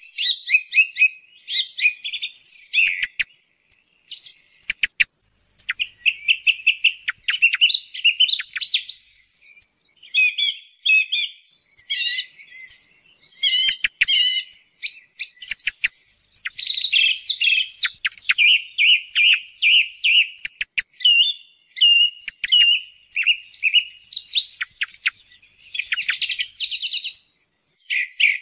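Song thrush singing: a continuous stream of loud, varied whistled and chirped phrases, many made of one note repeated several times in quick succession, with short pauses between phrases.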